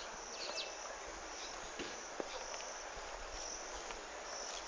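Outdoor ambience with insects chirping high and on and off, over a steady background hiss, with a few faint clicks.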